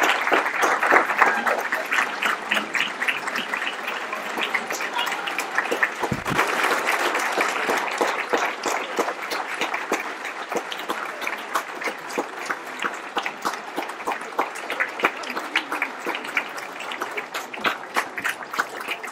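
Audience applauding, dense at first and slowly thinning out and getting quieter, with single claps standing out near the end. A brief low thump sounds about six seconds in.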